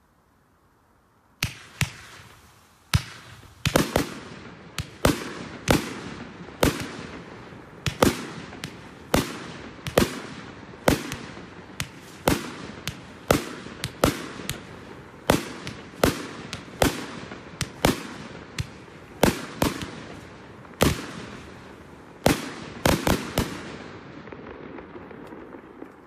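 Fireworks exploding in a long volley of sharp bangs, about one or two a second, each trailing off in an echo. They start about a second and a half in and stop near the end, leaving a fading rumble.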